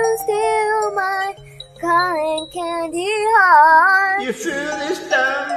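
A young girl singing a pop melody over a karaoke backing track, holding some notes with a slight waver.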